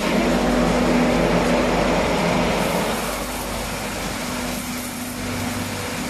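Stainless steel roller-type potato washing machine running: a steady motor hum under the rushing hiss of water spraying onto potatoes tumbling in the turning drum. The sound starts suddenly and is loudest in the first couple of seconds.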